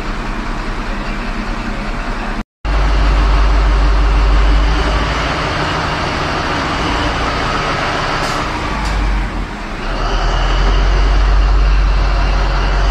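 An engine running steadily, a heavy low rumble in a railway tunnel. The sound drops out for a moment about two and a half seconds in, then comes back louder.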